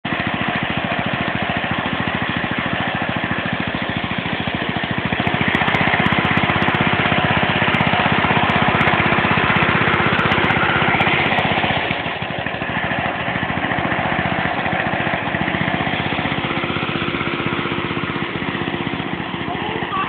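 Riding lawn mower's small engine running loud with an exhaust leak while burning oil heavily; it grows louder about six seconds in and drops back about twelve seconds in.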